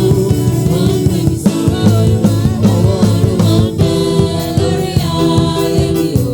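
Worship music with singing and a steady beat.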